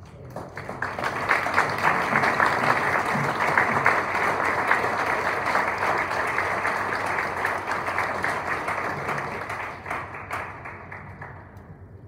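Audience applauding, building up over the first second and dying away near the end.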